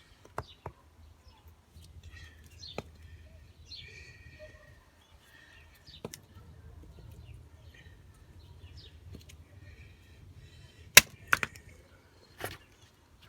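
Axe chopping wood: a series of sharp, separate thwacks at irregular intervals, the loudest pair about eleven seconds in. Birds chirp faintly in the background.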